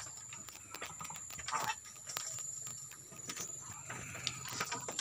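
Goats in their pen: scattered knocks and clatter, as from hooves, with a couple of short calls.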